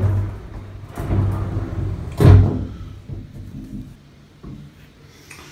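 A few knocks and bumps about a second apart, the loudest a sharp knock about two seconds in with a brief ring after it, then a faint tap later.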